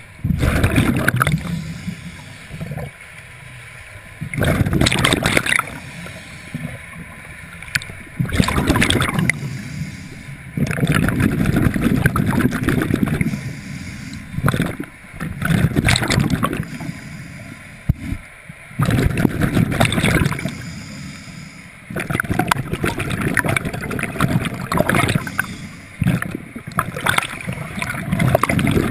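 Scuba diver breathing through a regulator underwater: a regular breathing cycle, with exhaled bubbles gurgling out in loud bursts every three to four seconds and quieter stretches between.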